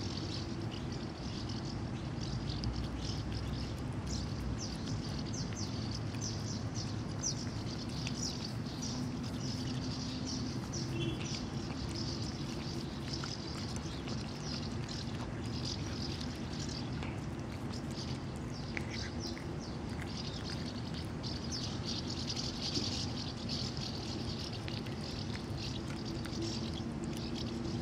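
A cat eating wet food from a plastic tub: rapid, wet chewing and smacking clicks, over a steady low hum.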